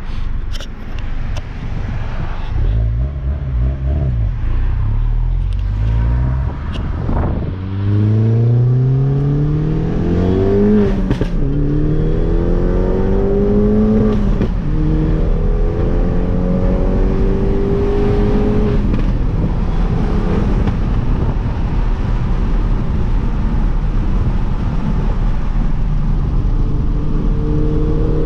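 Mini Cooper S (R56) turbocharged 1.6-litre four-cylinder engine accelerating through the gears, its pitch rising and then dropping at two gear changes, before settling into a steadier drive with a slow rise, over road noise.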